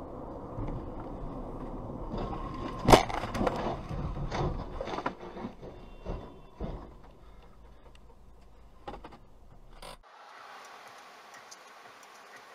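A car crashing and rolling over, heard from another car's dashcam: one sharp, loud bang about three seconds in, then a string of knocks and clattering over steady road noise.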